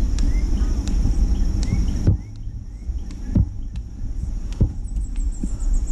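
Footsteps of a runner walking uphill on a paved road, one every second or so, under a steady high drone of rainforest insects. Short rising bird chirps come in the first two seconds, and a quick run of high descending notes comes near the end, over a low rumble on the microphone.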